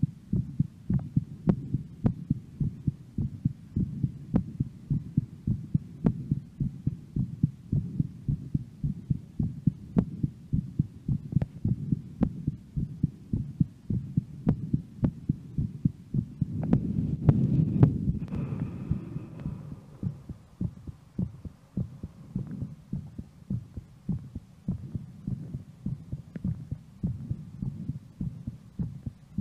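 A woman's heartbeat after a workout, beating steadily in an even train of low thumps. About 17 seconds in, a louder noisy sound swells over the beats for a couple of seconds.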